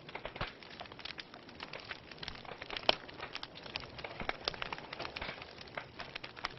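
Wood fire crackling in a fireplace: irregular pops and snaps over a soft hiss, with one sharp, louder pop about three seconds in.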